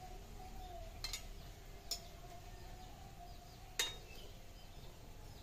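Metal slotted spoon clinking against an iron kadai while stirring fritters frying in oil: three short clinks, the loudest about four seconds in, over a faint steady background.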